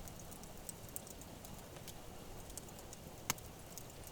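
Faint campfire crackling: small irregular pops and ticks, with one sharper pop about three seconds in.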